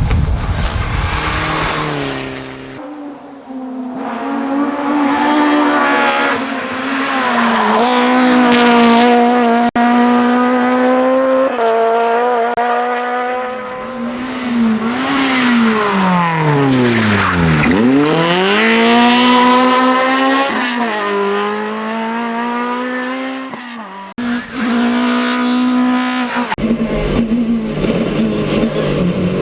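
Competition car's engine driven hard at a speed event, holding high revs with short dips and rises. About two-thirds of the way through, the revs drop steeply and then climb back up again.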